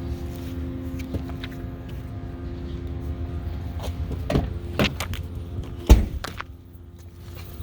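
A few clicks and knocks, then a car door shutting with one heavy thunk about six seconds in, over a steady low hum that drops away once the door is shut.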